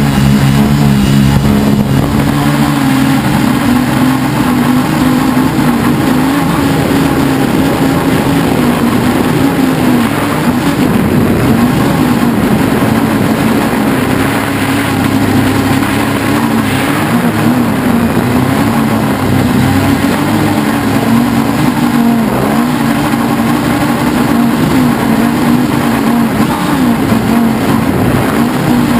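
Helimax Form 500 quadcopter's electric motors and propellers buzzing loudly in flight, heard close up from the onboard camera, the pitch wavering up and down as the motors change speed.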